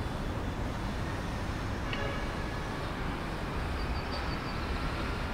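Steady low rumbling background noise, with faint thin tones coming in about two seconds in.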